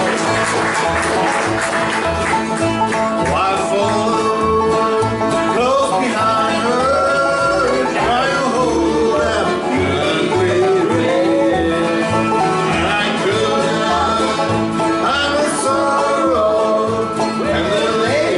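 Acoustic bluegrass band playing: banjo and guitar picking over a steady bass pulse, with a sliding melody line coming in after a few seconds.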